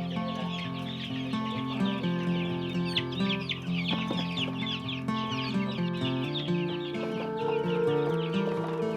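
Many young chicks peeping in a dense, continuous chorus of short high cheeps, over background music with slow held notes.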